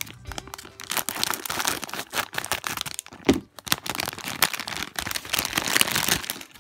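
Clear plastic packaging bag crinkling and crackling as hands work a squishy toy out of it, with one sharper crack about halfway through.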